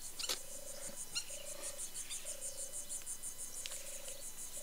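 Pond-side calling of insects and frogs: a high, steady pulsing chirp of about five pulses a second, under a low buzzy call of about half a second that repeats roughly once a second. A few faint higher chirps and a soft click come in near the start.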